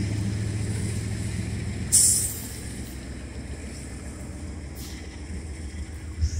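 Diesel locomotive engines of Pan Am Railways EMD SD40-type units rumbling low and steady as the freight train rolls slowly past, coming to a stop. A brief loud burst of high noise about two seconds in.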